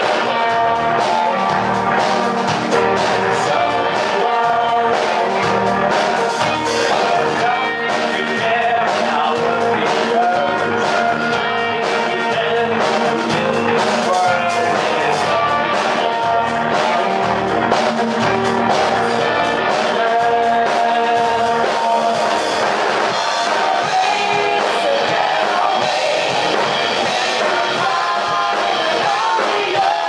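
A live rock band playing: a male lead vocal sung over electric guitar, bass guitar and a drum kit keeping a steady beat.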